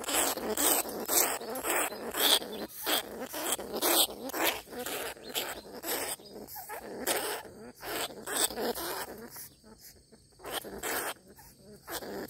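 Irregular rustling and rattling of a wire-mesh rat trap, with a caught rat inside, against grass and dry cane leaves as it is handled. The sound is quieter for the last few seconds.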